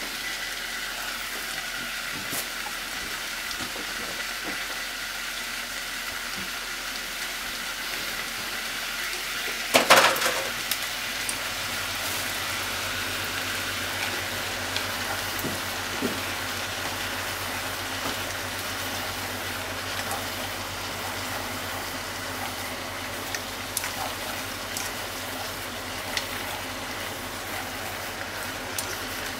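Chopped onion and chicken sizzling as they are stir-fried in a pot, with wooden chopsticks tapping and scraping against it. A single louder clatter comes about ten seconds in, after which a faint low hum sets in.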